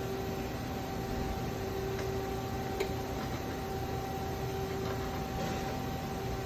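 A steady machine hum with an even hiss, and one faint click about three seconds in.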